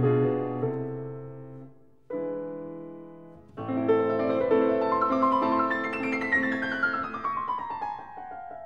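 Background piano music: two chords left to ring and fade away, then a flowing passage that ends in a run of notes falling in pitch.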